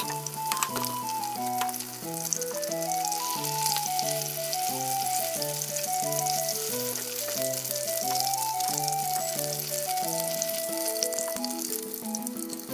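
Oil sizzling and crackling as tempura-battered salted salmon and sausages shallow-fry in a frying pan, thinning near the end as the pan empties. Background music plays over it.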